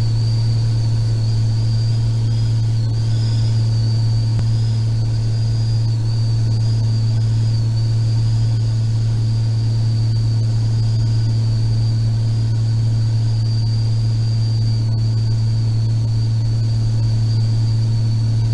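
Mooney Ovation 3's six-cylinder Continental IO-550 engine and propeller running at a steady power setting, heard from inside the cockpit as an even low drone with a thin, steady high whine above it.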